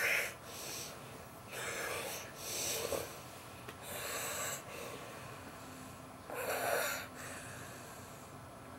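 A man snoring in his sleep: a series of noisy snoring breaths about every two seconds, four or so in all.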